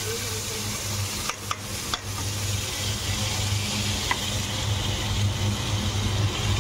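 Freshly added ground tomato, green chilli and ginger paste sizzling in hot oil over browned onions in a metal kadhai, a steady hiss with a steady low hum underneath. A metal spoon knocks and scrapes the pan a few times about one and a half seconds in, and once more near four seconds.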